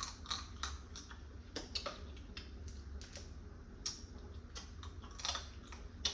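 Blue crab shell being handled, picked and eaten: a string of irregular sharp clicks and small cracks at uneven spacing, over a faint steady low hum.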